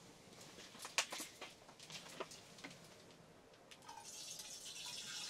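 Light clicks and knocks of camp cookware being handled, several in the first few seconds, then a soft hiss for about the last second and a half.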